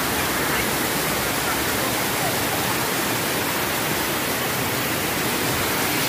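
A waterfall: white water rushing steadily over a broad rocky cascade, as a continuous even rush.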